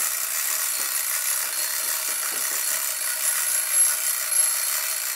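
Clockwork spring motor of a vintage tin Ferris wheel toy running, a steady whirr of its gears and governor as the wheel turns. The mechanism runs unoiled, only washed.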